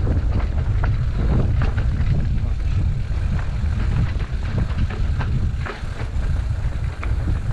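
Heavy wind rumble on the microphone while riding an electric mountain bike, with frequent sharp knocks and rattles from the bike over rough ground.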